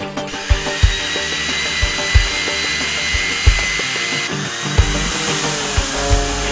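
Bosch GSS 2300 orbital sander running with a steady, whiny buzz; the tone shifts about four seconds in. Background music with a steady beat plays under it.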